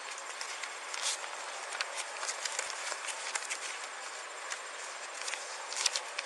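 Steady outdoor background hiss picked up by a police body camera, with scattered light clicks and rustles throughout.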